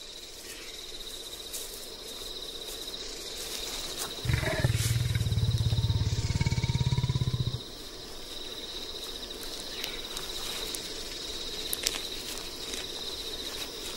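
A leopard growls once, a low rasping growl lasting about three seconds that starts about four seconds in, over a steady high-pitched buzz.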